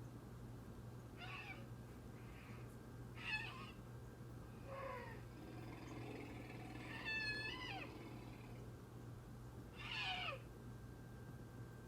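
A woolly mammoth sound effect: five short, high animal cries, each sliding down in pitch, coming every two to three seconds over a steady low hum.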